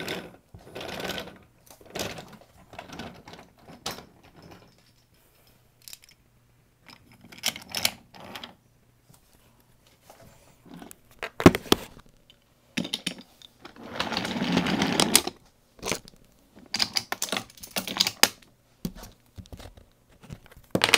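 Wooden toy trains and wooden track pieces being handled: irregular clicks and clacks of wood on wood, with a longer rubbing, scraping stretch about two-thirds of the way through.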